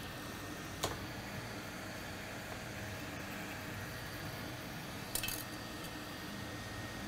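Small metal tools clinking: one sharp click about a second in and a short rattle of clicks about five seconds in, over a steady airflow hiss.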